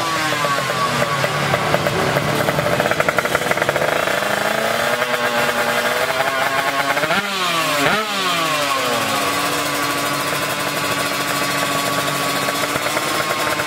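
Two-stroke drag-racing motorcycles at full throttle, several engines at once with their pitch climbing through the gears. About seven seconds in, bikes pass close by with a sudden fall in pitch, and a steadier engine note carries on after.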